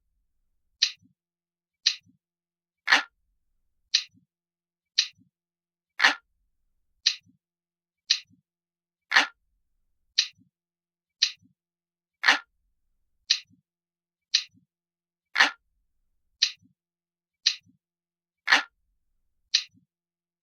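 Ticking clock sound, one sharp tick about every second, with every third tick louder and fuller. A faint low knock follows just after each tick.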